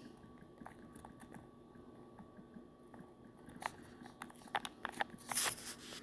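Faint, irregular clicks of typing on a smartphone's on-screen keyboard, growing more frequent and louder in the second half.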